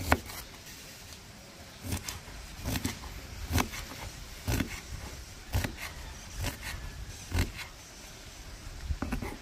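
Knife chopping on a cutting board, a single sharp chop about once a second.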